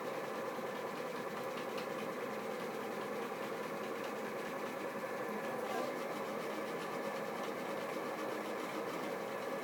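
Stepper motors of a Rostock delta 3D printer driving its carriages through G-code moves: a steady buzzing whine made of several tones, with a few faint ticks.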